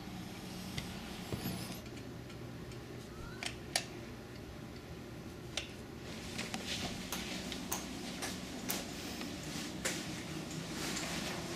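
Scattered light clicks and taps of a screwdriver, a silicone tube and a plastic mounting plate being handled, more of them in the second half, over a steady low hum.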